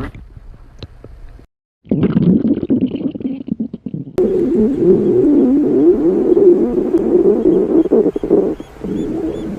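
A girl's stomach growling: faint gurgles at first, then, after a short gap, a long, wavering rumble that grows louder about four seconds in and fades shortly before the end.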